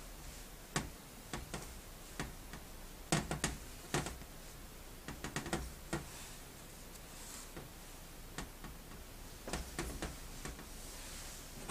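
Irregular sharp clicks and knocks of small metal parts and tools being handled on a bench while a ball valve is worked on, with clusters of several quick knocks about three, five and ten seconds in, over a steady low hum.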